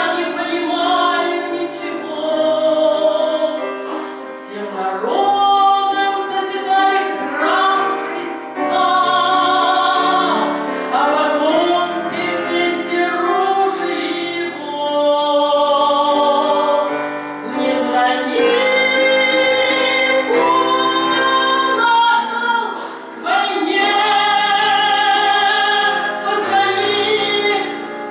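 A woman sings a Russian song in full voice over instrumental backing, holding long notes.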